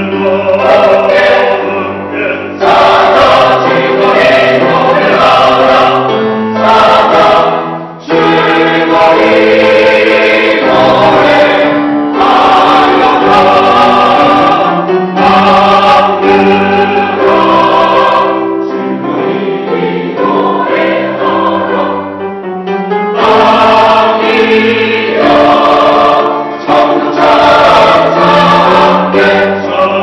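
Mixed church choir of men and women singing a Korean anthem in several parts, with short breaks between phrases.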